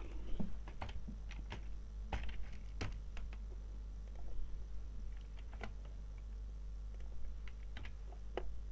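Irregular keystrokes on a computer keyboard, typing out a spreadsheet formula.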